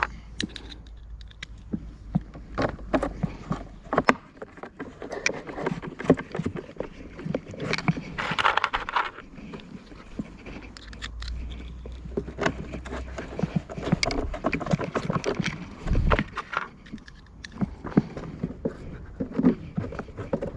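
Scattered clicks, knocks and scrapes of tools and the plastic parts of a Homelite leaf blower being handled during reassembly, with a longer scraping rasp about eight seconds in.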